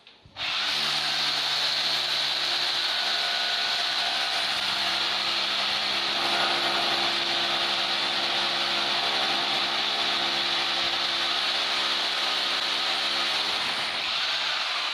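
Corded electric drill running steadily as it bores into a plastered wall, with a constant motor whine over hissing drilling noise, starting about half a second in.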